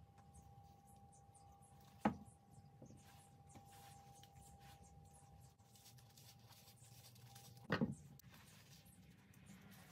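Quiet handling of a diesel heater fuel pump, hose and clamps on a workbench, with two sharp knocks, about two seconds in and near the end, as a part or tool is set down or picked up.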